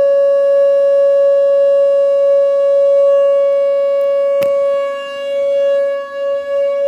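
Whelen WPS 2910 electronic outdoor warning siren sounding its steady alert tone at a single pitch. It is loud and wavers in loudness over the last couple of seconds. A single sharp click cuts through it a little past halfway.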